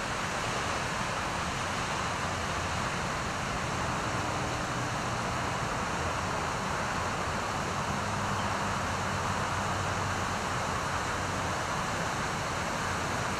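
Breaking ocean surf giving a steady, even wash of noise, with no distinct crashes standing out.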